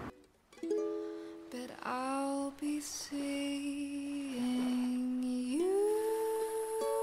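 Background music: a ukulele song with long held melody notes that slide up into pitch about two seconds in and again near six seconds, after a brief dropout at the very start.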